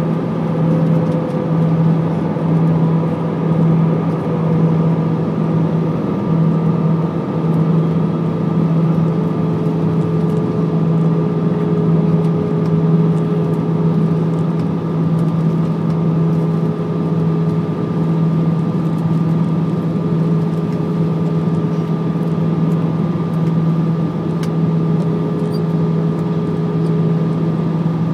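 Airbus A319 cabin noise during descent: steady jet engine drone and rushing airflow with a low hum and a higher whine. A mid-pitched tone slides slightly lower about eight seconds in.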